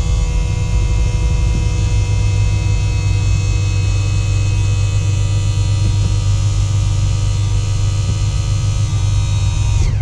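Electric power trim/tilt pump on a MerCruiser sterndrive running steadily with a low hum while it raises the drive, then stopping near the end as the drive reaches the top.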